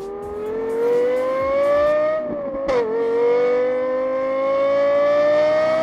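Car engine revving up under acceleration. Its pitch climbs steadily, drops sharply with a click at a gear change a little under three seconds in, then climbs again.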